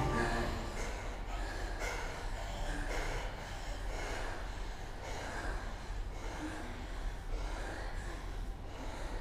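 Actors breathing audibly on stage, a series of short breaths repeating over and over. The tail of music fades out at the very start.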